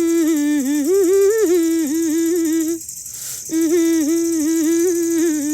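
A woman singing unaccompanied, the opening of a Nepali Dashain folk song: a long melodic phrase held around one pitch with quick ornamental turns. It breaks for a breath about three seconds in and then carries on.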